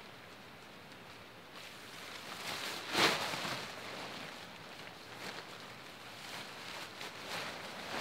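Intermittent rustling over a quiet outdoor background, with the loudest rustle about three seconds in and a couple of fainter ones later.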